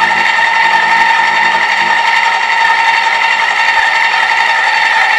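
Reber n°3 400 W electric motor base running a pasta-extruder attachment, a steady whine as the screw pushes durum-wheat dough through the die to form flat pasta ribbons.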